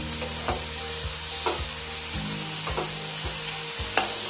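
Sliced banana stem and potato sizzling in hot oil in a non-stick kadai, with a spatula stirring them and scraping the pan about once a second.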